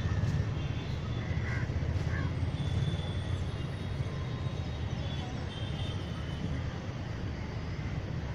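Outdoor ambience of a steady low rumble, with a few crows cawing in the first couple of seconds.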